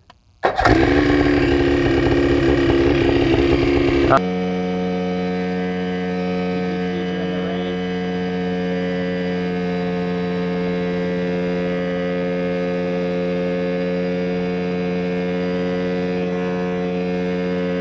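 Mosquito Air homebuilt helicopter's engine starting up and running loud, rising in pitch at first. About four seconds in the sound changes suddenly to a steady, even drone with a strong hum that holds to the end.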